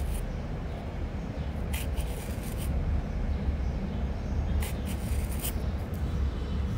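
Hand nail file rasping across a gel nail extension in short strokes, in two bursts about two and five seconds in, over a low steady rumble.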